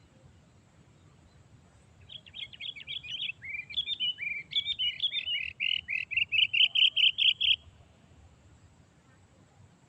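Kutilang (sooty-headed bulbul) chattering call: a run of quick chirps that grows louder and faster, then stops suddenly about two-thirds of the way in.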